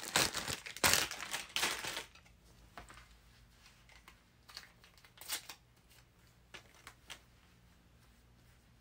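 Clear plastic bag of packaged syringes crinkling as it is handled, loudest in the first two seconds, followed by fainter scattered rustles and light clicks.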